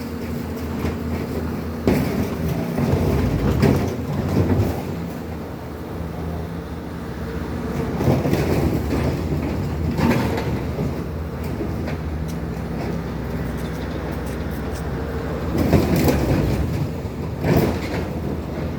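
Bobcat skid-steer loaders and a grinder mixer running steadily, with loud metallic clanks and rattles every few seconds.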